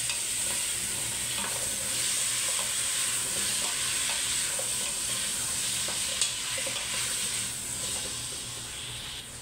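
Chopped potatoes, carrots and tomatoes sizzling in hot oil in a stainless steel pot as they are stirred with a wooden spoon, with a few light knocks of the spoon against the pot. The sizzle eases a little near the end.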